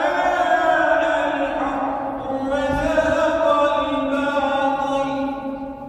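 A man's voice chanting an Islamic recitation in long, held, ornamented notes, two phrases with a short breath about two seconds in, fading near the end.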